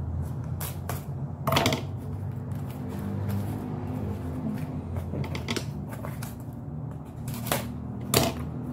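Paper and cardboard packaging handled and opened by hand: rustling with scattered clicks, and a few sharper knocks about one and a half seconds in and twice near the end, over a steady low hum.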